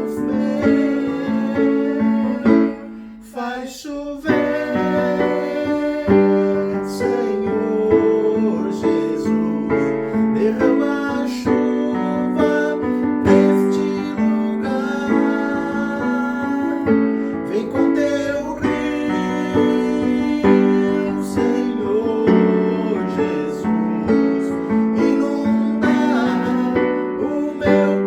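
Instrumental passage of a worship song led by piano or keyboard chords, with a brief drop in level about three seconds in.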